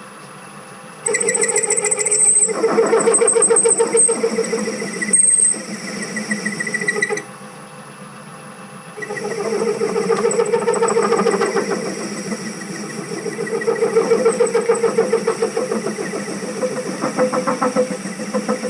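Myford Super 7B metal lathe running, starting abruptly about a second in, stopping for about two seconds midway, then running again, with a fast even rhythmic chatter over steady tones.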